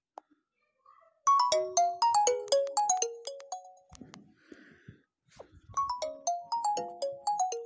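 Nokia 3.1 Plus phone ringtone playing through the phone's speaker: a quick melody of short, bright, decaying notes, heard twice, starting just over a second in and again near six seconds.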